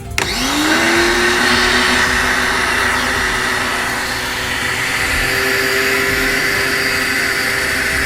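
Kawasaki HBP-302 high-pressure washer switched on: its motor spins up within half a second to a steady whine and keeps running with a steady hiss.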